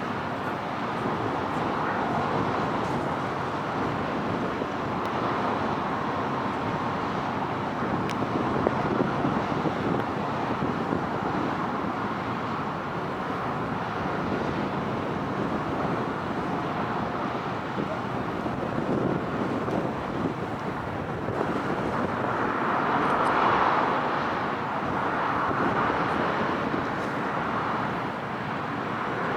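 Steady rushing, rumbling noise of a large ferry's engines and propeller wash as it manoeuvres out of harbour. The noise swells louder a few times near the end.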